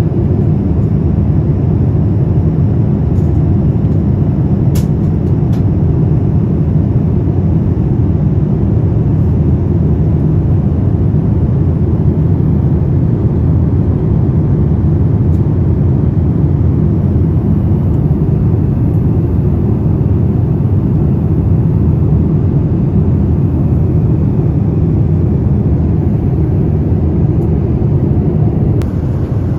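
Steady, loud, low-pitched cabin noise inside a Boeing 787 Dreamliner, the sound of its two GEnx-1B engines and the airflow as heard from a rear window seat.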